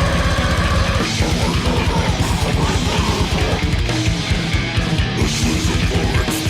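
Heavy metal music: distorted guitars over fast, dense drumming.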